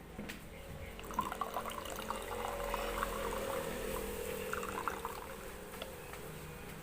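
Liquid being poured into a container: a steady pour starting about a second in and lasting about four seconds.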